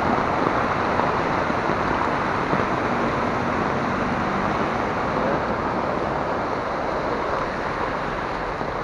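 Heavy rain falling on a flooded street: a steady rushing noise of downpour and running water.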